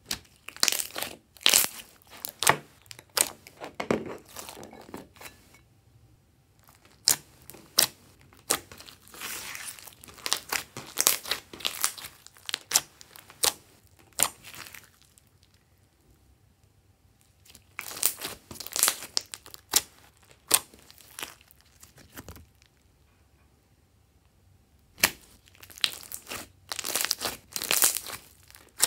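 Glossy slime being squeezed, stretched and pressed by hand, giving clusters of sharp crackles and pops with short quiet pauses between handfuls.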